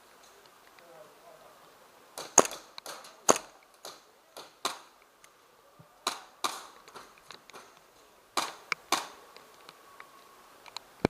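Scattered shots from several airsoft pistols. They come as single sharp cracks and quick pairs at uneven spacing, about a dozen in all.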